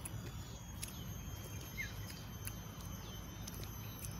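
Outdoor rural ambience: a steady low rumble with faint insect buzzing and one short bird chirp about two seconds in. A few soft clicks are scattered through it.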